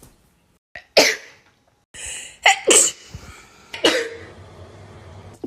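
A quick run of sharp human sneezes, one about a second in, two close together near the middle and another near the end.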